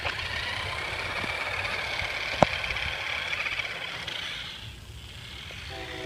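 Electric motor of a remote-control truck whining steadily as it drives off, fading out after about four seconds. A single sharp click about two and a half seconds in.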